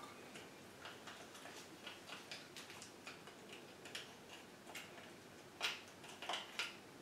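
Table knife stirring a cleansing-powder paste in a small cup, giving faint, irregular clicks and scrapes against the cup, with one louder click just before six seconds in.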